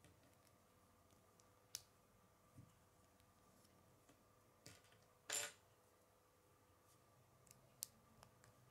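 Small plastic Lego pieces being pressed and snapped together by hand: a handful of faint, sharp clicks, the loudest a short snap a little past halfway, over a faint steady hum.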